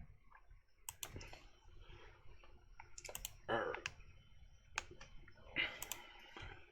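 Computer keyboard keys and mouse buttons clicking, a few scattered clicks at a time, with a brief soft breathy sound about three and a half seconds in and again near the end.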